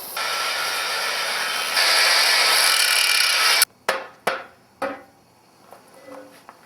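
An abrasive tool works the stove's metal parts with a loud, steady, rasping noise. It gets louder about two seconds in and cuts off sharply after about three and a half seconds. A few separate knocks follow.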